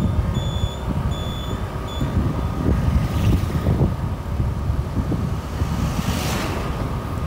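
Road noise from a moving vehicle with wind buffeting the microphone. A high electronic beep repeats about twice a second for the first two seconds, then stops, and a vehicle swishes past close by about six seconds in.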